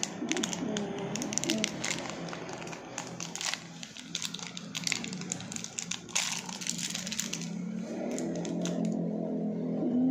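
Small plastic candy wrapper crinkling and crackling as it is peeled open by hand to free a gummy candy. The crackling runs for about seven seconds and stops, leaving steady low tones near the end.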